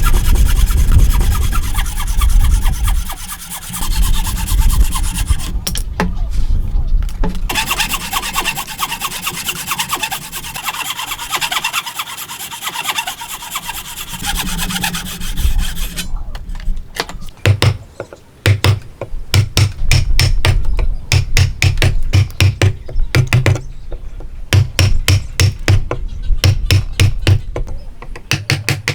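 Hand saw cutting through wood with quick back-and-forth strokes, pausing briefly about six seconds in. In the last twelve seconds this gives way to a run of rapid, evenly spaced strokes on the wood.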